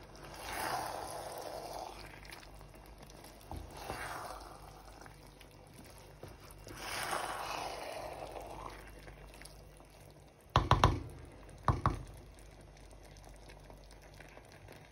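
A spoon turning cooked biryani rice in a pan: three soft swishing scrapes, then a quick run of sharp knocks against the pan about two-thirds through and one more knock a second later.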